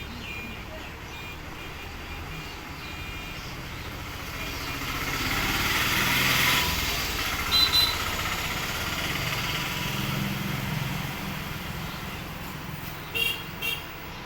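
Passing road traffic: a motor vehicle's noise swells to a peak around the middle and then eases, with short horn beeps about halfway through and twice more near the end.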